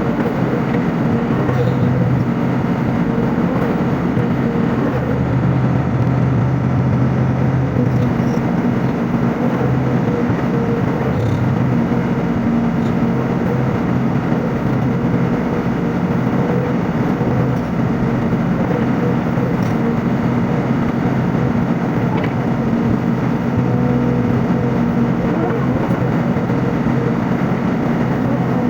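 Sany SY55C mini excavator's diesel engine running steadily, its pitch dipping and rising slightly now and then.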